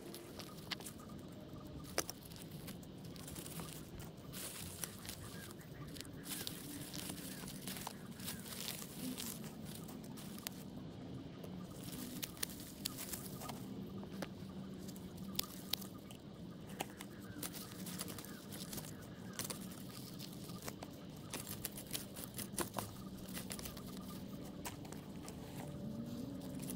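Hand work in a garden flower bed: irregular clicks, scrapes and tearing of plants and soil being pulled and cleared, over a steady low hum.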